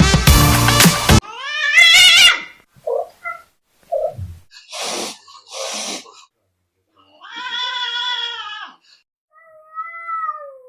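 A cat meowing several times, separate drawn-out calls with pauses between them, the longest about two-thirds of the way through. Music cuts off about a second in.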